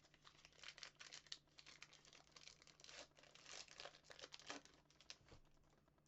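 A hockey card pack's wrapper being torn open and crinkled, a run of faint crackles that stops about five seconds in.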